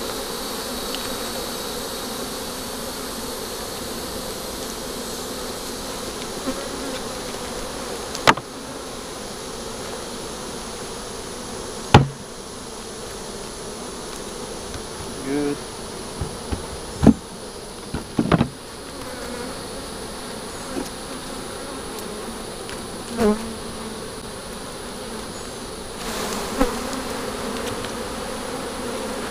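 Honeybees buzzing in a steady hum around an opened hive, with several sharp wooden knocks from frames and hive boxes being handled, the loudest about eight, twelve, seventeen and eighteen seconds in.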